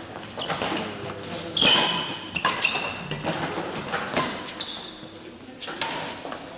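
Badminton rally: rackets striking the shuttlecock with sharp pops several times, and shoes squeaking briefly on the gym floor as the players move, echoing in the hall.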